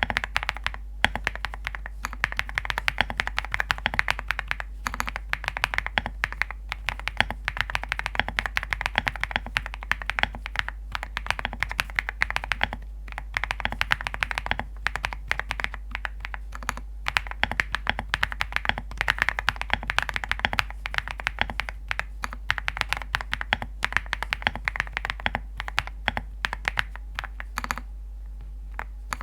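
Fast continuous typing on a foam-filled ZOO65 mechanical keyboard with Graphite Gold switches: a dense run of keystrokes with a stone-like tapping sound that pauses briefly near the end.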